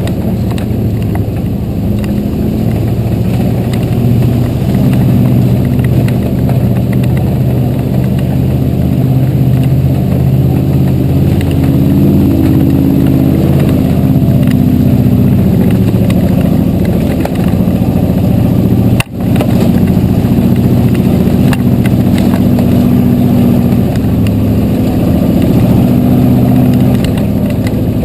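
Off-road wrecker's engine running steadily while driving the trail with a pickup on the hook, its pitch rising and falling with the throttle. It cuts out suddenly for an instant about two-thirds of the way through.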